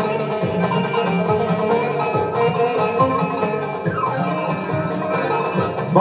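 Live band playing an instrumental interlude between sung verses of a Turkish folk-pop song: bağlama and keyboard over a steady beat, with a short falling run about four seconds in.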